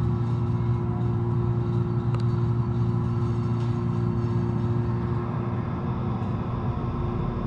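Schindler MT/300A hydraulic elevator power unit with a submersible pump motor running steadily as it raises the car: a loud, even hum with a deep drone and a steady higher tone.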